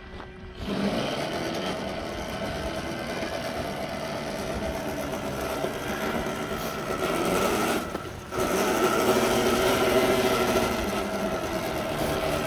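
A 2000 W, 48 V electric go-kart motor whining steadily as the kart drives along. The whine drops out briefly about eight seconds in, then returns a little louder.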